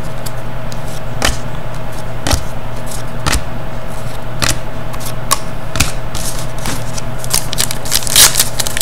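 2010-11 Panini Pinnacle hockey cards being flipped through one at a time, each card snapping against the stack about once a second, over a steady low hum. Near the end comes a quick run of crinkling as a foil card pack is handled and torn.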